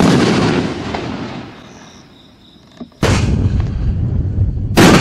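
A 4-inch aerial canister shell bursts with a sudden loud bang that rolls away over about two seconds. About three seconds in, a loud steady low rumble sets in, and another sharp bang comes near the end.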